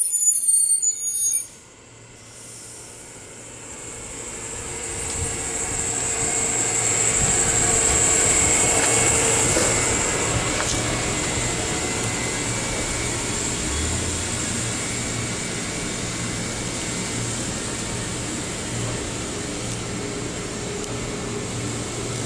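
JR 211 series electric train at a station platform: a brief high squeal of wheels cuts off suddenly about a second and a half in. Then a rumble builds over several seconds and settles into a steady hum with a low drone and a faint high whine.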